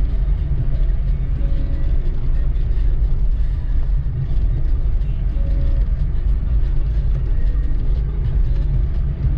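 Steady low rumble of a car's engine and tyres, heard from inside the moving car.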